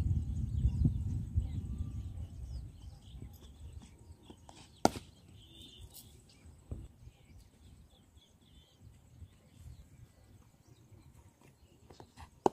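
Low rumble of wind on the microphone that fades over the first few seconds, then a single sharp knock about five seconds in: a cricket bat striking the ball. Faint bird chirps can be heard.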